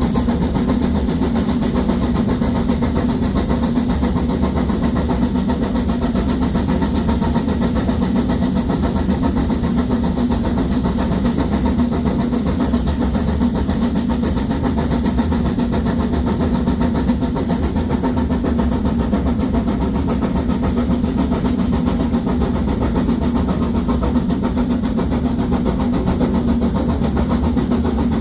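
Narrow-gauge steam locomotive 99 7240-7, a 2-10-2 tank engine, working hard up a steep 1:25 grade with seven full coaches: a steady, unbroken run of loud exhaust beats.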